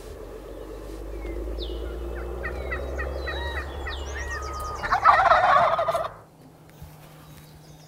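A wild turkey tom gobbling once, loud and rattling, about five seconds in, with small birds chirping before it.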